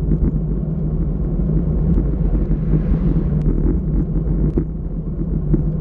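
Steady low rumble of a road bike rolling on asphalt, with wind buffeting the bike-mounted action camera's microphone and a few small sharp ticks.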